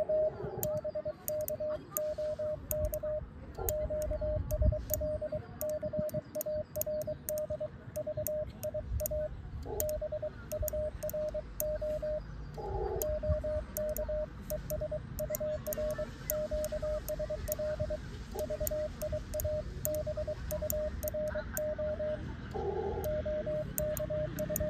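Morse code (CW) from an amateur radio transceiver: a steady single-pitch tone keyed on and off in dots and dashes, spelling out a QSL-card-via-bureau exchange. A few times the tone briefly breaks or thickens, about a second in, near the middle and near the end.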